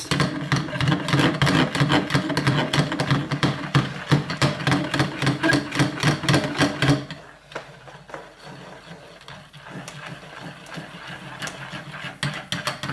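Stick blender running in cold-process goat milk soap batter that is thickening toward trace, its motor note chopped into rapid pulses as it churns. About seven seconds in the blending stops and only faint rapid clicking remains.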